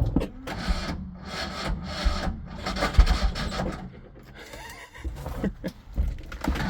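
1986 Ford Ranger's 2.3-litre four-cylinder engine being cranked and sputtering as it tries to start on freshly installed spark plugs, in uneven raspy pulses that ease off about four seconds in before picking up again.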